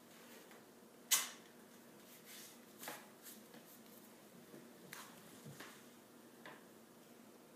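White athletic tape being pulled off the roll and torn while a foot is taped: several short crackly rips, the loudest about a second in.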